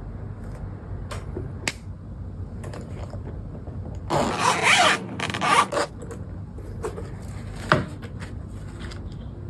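Computer keyboard keys being pressed: a few separate clicks, then a fast, dense run of keystrokes for about two seconds in the middle, then a few more single clicks.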